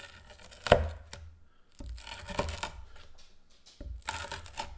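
A stainless steel rocker pizza cutter pressed down through a thin, crispy baked cheese bread crust on a wooden board: three crunchy cuts, the first with one sharp knock.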